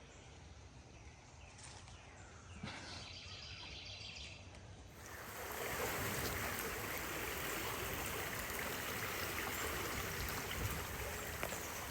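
Quiet outdoor ambience with a short bird trill about three seconds in, then, about five seconds in, a steady, louder rushing hiss sets in and continues.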